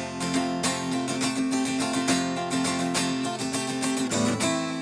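Background music: acoustic guitar strumming at a steady rhythm.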